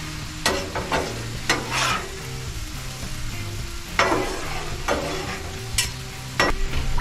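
Food sizzling as it is stir-fried on a Blackstone flat-top griddle, with several sharp strokes of a spatula scraping and knocking on the steel surface. Faint background music underneath.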